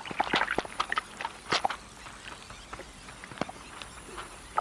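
An irregular patter of small watery clicks and plops, about a dozen of them, some ending in a short falling tone, over a faint steady hiss.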